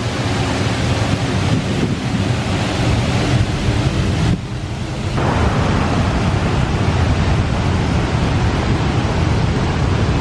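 Floodwater of a swollen river rushing over and below a waterfall: a steady, loud roar of churning water.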